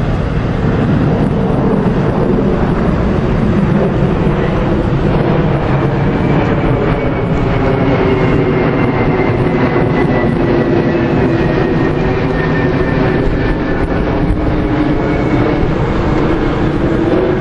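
Metra commuter train's diesel locomotive pulling away, its engine running loud and steady, with the engine note rising slowly in the second half and a thin high whine in the middle.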